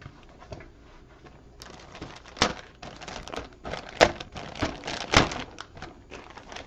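Clear plastic bag crinkling around a plastic model-kit sprue as it is handled and lifted out of a cardboard box, with three sharper clacks about two and a half, four and five seconds in.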